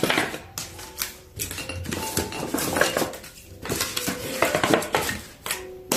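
Small glass bottles clinking and knocking against each other as they are handled and packed, an irregular run of sharp clinks, a few with a brief ring.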